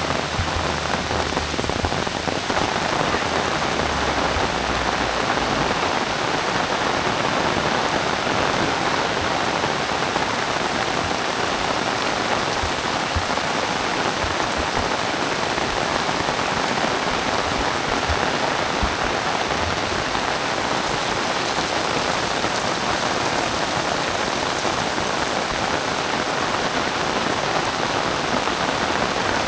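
Very heavy rain falling steadily, a dense unbroken downpour.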